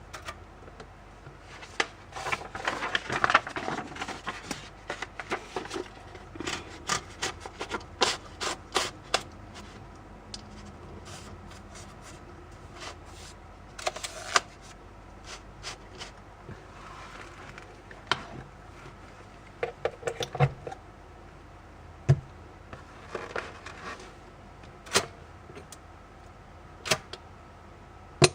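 Typewriter keys being struck, sharp irregular clacks. There is a quick flurry of strokes in the first several seconds, then slower, scattered single keystrokes.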